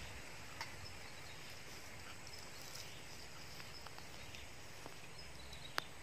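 Faint outdoor rural ambience: a steady hiss with a few short, faint high chirps and small ticks, and one sharp click near the end.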